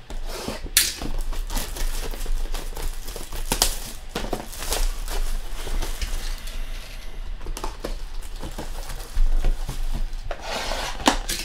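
Clear plastic shrink wrap being torn and crinkled off a cardboard trading-card box, with irregular sharp crackles and rustling. Near the end there is a denser rustle as the box is handled and opened.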